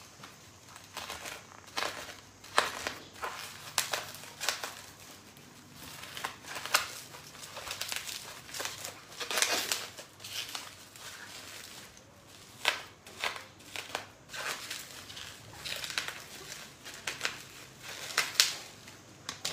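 Packaging wrap crinkling, rustling and tearing as a wrapped item is pulled open by hand, in irregular crackly bursts.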